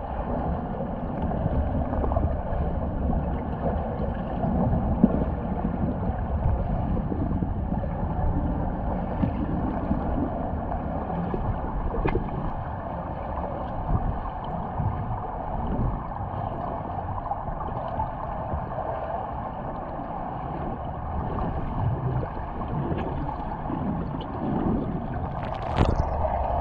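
Underwater ambience picked up by a camera submerged in a swimming pool: a steady, muffled rumble of water noise. A brief sharper sound comes near the end.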